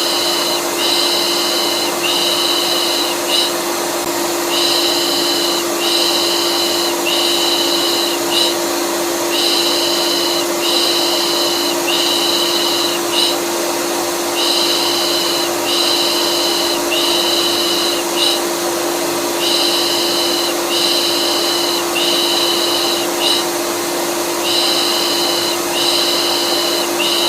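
Vacuum cleaner running steadily with a constant hum. Over it, rhythmic 'pış pış' shushing comes in groups of about four strokes with a short pause between groups, a white-noise lull for calming a colicky baby.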